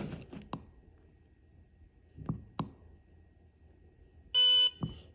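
A few sharp plastic clicks as the keypad is handled, then near the end a single short electronic beep from the WIRC keypad, a buzzy tone lasting about a third of a second, followed by one more click.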